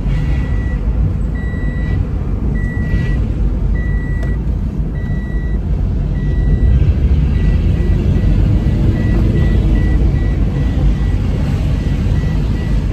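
Car cabin noise while driving: a steady low rumble of engine and tyres on a wet road. Over it a dashboard warning chime beeps about once a second, then switches to shorter, quicker beeps about halfway through.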